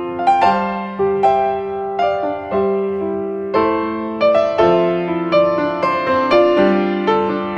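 Background piano music: notes and chords struck at an unhurried, even pace, about one a second, each ringing and fading.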